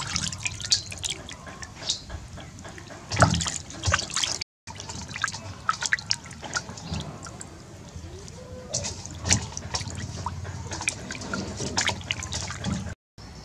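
Water splashing and dripping in a metal basin as hands rub and rinse raw chicken wings, in short irregular splashes. The sound cuts out briefly twice.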